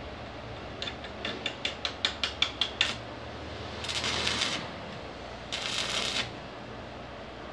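Electric arc welding on a chair's steel tube frame: a quick run of about ten sharp snaps over two seconds, then two short bursts of arc crackle, each lasting under a second.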